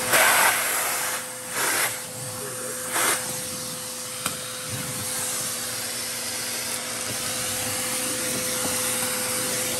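Dirt Devil CV1500 RV central vacuum running steadily, its air rushing through the hose and crevice tool with a steady hum as it sucks up debris from a tile floor. The rush gets briefly louder three times in the first three seconds, with a small click about four seconds in.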